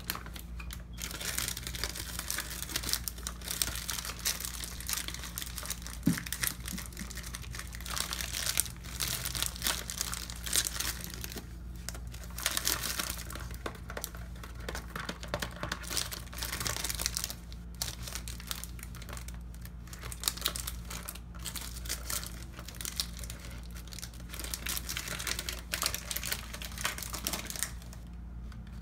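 Cardboard box of Tone cocoa butter bar soap being handled, crinkling in irregular bursts over the steady rush of a running faucet.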